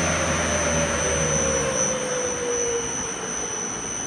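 Forced-air precooler fans winding down after being stopped: the rush of air slowly fades and a fan tone slides steadily lower as the variable-frequency drive ramps the motors down. A low hum drops away about halfway through, and a steady high-pitched whine carries on underneath.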